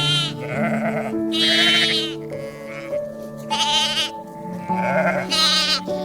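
Livestock bleating, about four loud wavering bleats roughly a second and a half apart, over background music with long held notes.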